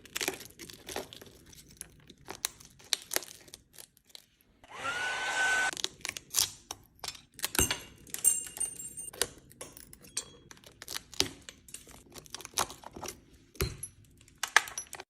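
Small tools tapping, clicking and scraping on an iPhone 13 Pro Max's back glass to crack it loose. About five seconds in, a brief whirring blow of noise rises in pitch and then stops.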